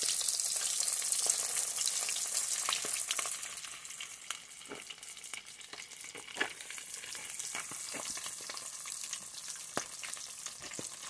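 Breadcrumb-coated chicken pieces frying in hot oil in a pan: a dense sizzle that eases after about three and a half seconds into a quieter sizzle with scattered pops.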